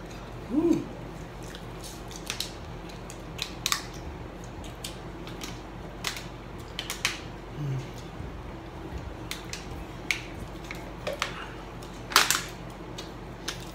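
Eating and handling noises: scattered sharp clicks and crackles at the table, the loudest near the end as a plastic water bottle is handled, with a short vocal sound about a second in.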